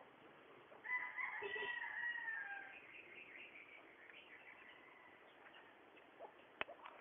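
A rooster crowing once: one call of about two seconds with a slight drop in pitch at its end. A few sharp clicks near the end.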